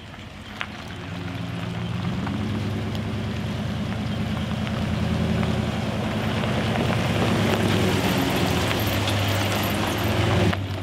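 A 2013 Ram 1500 pickup's V8 engine and tyres on asphalt as the truck drives by, growing louder over the first couple of seconds as it approaches and then holding at a steady low engine hum. A single brief click sounds about half a second in.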